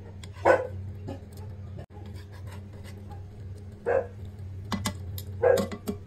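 Steady electrical hum with light clicks of tongs and spatula against a nonstick frying pan as pieces of fried tofu skin are laid in shallow oil. Three short, loud yelp-like sounds stand out, about half a second, four and five and a half seconds in.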